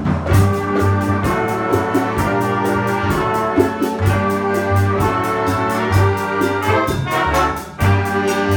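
Middle-school jazz band playing a Latin jazz tune: brass and saxophones holding chords over a steady, quick percussion beat, with a short break near the end before the full band comes back in.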